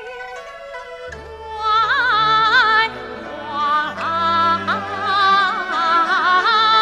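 Yue opera music. A long held note dies away about a second in, then the accompanying orchestra comes in with a low sustained bass under a high melody with wide, quick vibrato.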